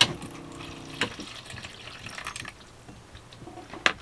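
Water running from a galley sink faucet into a small plastic container, with a few sharp clicks and knocks, the loudest one near the end.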